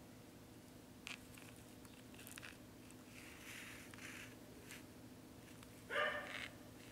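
Soft handling noises of hands turning a camcorder over, a click and light rustling, over a steady low hum. About six seconds in a short, loud, high yelp breaks in, like a small dog's.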